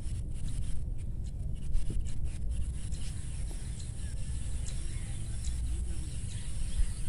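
Outdoor rural ambience: a steady low rumble on the microphone, with faint bird chirps and a few scattered small clicks.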